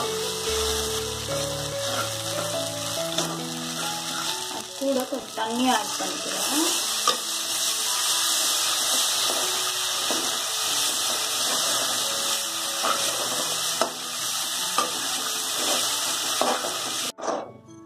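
Onion and capsicum sizzling in oil in a non-stick kadai while a spatula stirs and scrapes them, the cornflour slurry going in and thickening into a sauce. The sizzling cuts off suddenly near the end.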